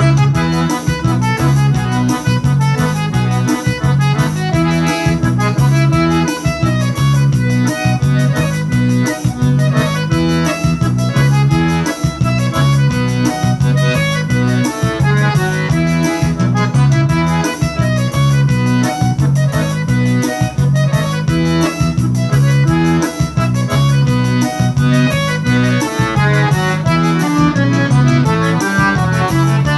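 Piano accordion playing a lively forró/piseiro melody over a steady beat and repeating bass line.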